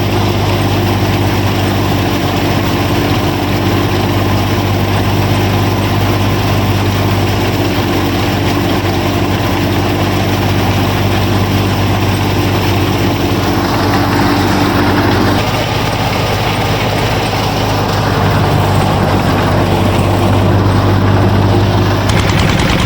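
Steady engine-like drone of the miniature tractor and thresher machine running continuously. Its tone shifts about 15 seconds in.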